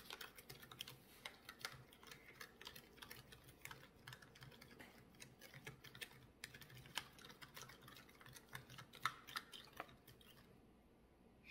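Faint, irregular clicking and tapping of a thin plastic mixing stick stirring borax powder into water in a small plastic cup, the stick knocking against the cup's sides; the clicks stop shortly before the end.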